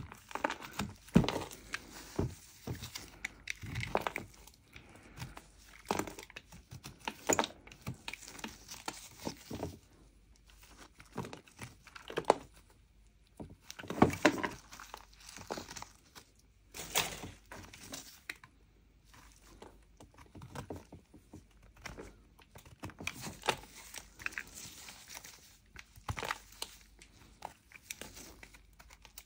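A small metal blade scraping and chipping the crumbly outer layer off a large block of moka clay: irregular scrapes and small cracks as flakes break away, with a couple of short pauses.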